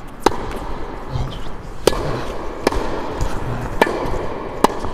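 A tennis ball hit back and forth with rackets and bouncing on a hard court during a rally: five sharp pops at irregular intervals.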